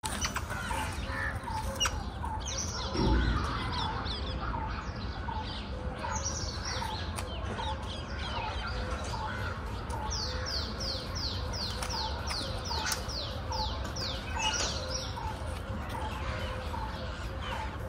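Outdoor birdsong with several birds calling together: short notes repeating about twice a second, and in the second half a run of quick descending whistles, about three a second. A brief low thump about three seconds in.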